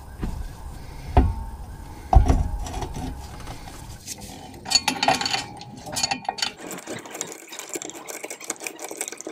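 Spanner working the bolts that join a prop shaft to a rear differential flange: two knocks in the first couple of seconds, then a long run of quick metallic clicks and clinks.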